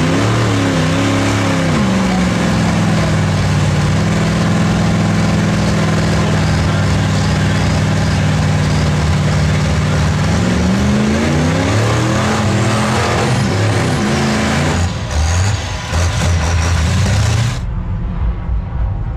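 Diesel engine of a lifted Dodge Ram mega truck running hard at high revs under load, blowing black smoke from its stack. It holds a steady pitch for several seconds, then revs up and down. The engine sound stops abruptly near the end, giving way to a quieter low rumble.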